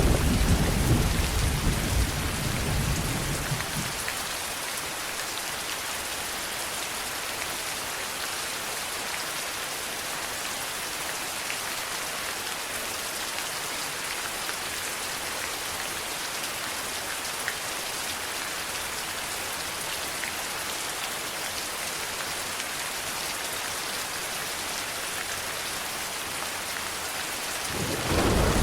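Steady heavy rain, an even hiss, with a low thunder rumble dying away over the first few seconds and another rumble starting near the end.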